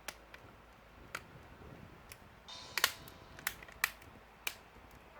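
Back cover of a Samsung Galaxy Tab S 10.1 tablet being pressed on, its clips snapping into place: about seven sharp, separate clicks at uneven intervals, the loudest about three seconds in. The clicking is the sign that the cover is locked.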